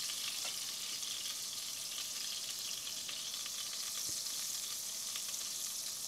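Butter and olive oil sizzling in a cast iron pot as the butter melts: a steady, soft sizzle with faint crackles.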